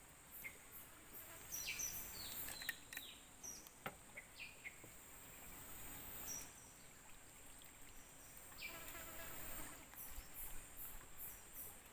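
Tropical riverbank insects buzzing steadily at a high pitch, with short bird chirps scattered throughout and a single sharp click about four seconds in.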